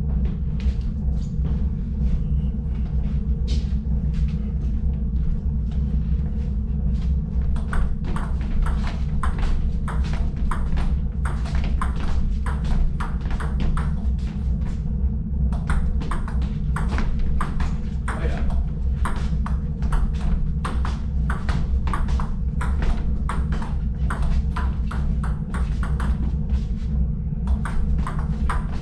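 Table tennis rally: the plastic ball clicks off the paddles and bounces on the JOOLA table in a quick, regular patter of ticks, sparse at first and then steady from a few seconds in, with brief breaks between points. A steady low hum runs underneath.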